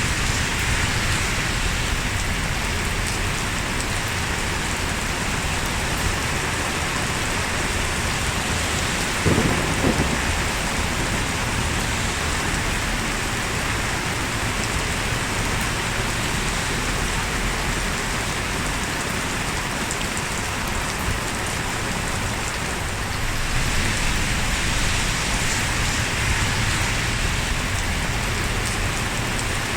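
Steady heavy rain falling, with thunder rumbling low underneath. A short louder burst comes about nine seconds in, and the rain grows heavier a little after twenty seconds.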